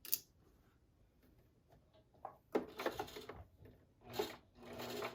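A sharp click, then a Singer sewing machine stitching in two short bursts, starting and stopping as the seam is begun with a back stitch.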